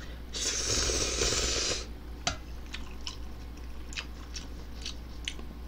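A person slurping a mouthful of instant ramen noodles in one long noisy slurp of about a second and a half, then chewing, with small wet mouth clicks.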